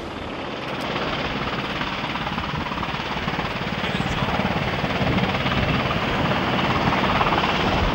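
EH101 helicopter hovering low: steady rotor and turbine noise that grows gradually louder as it comes closer.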